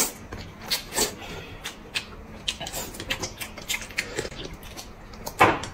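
Close eating sounds: noodles slurped from a soup bowl and chewed, with irregular wet clicks and smacks and a louder slurp near the end.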